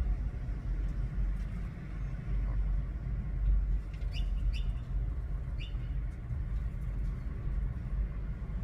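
A small bird chirps three times, briefly, around the middle, over a steady low rumble.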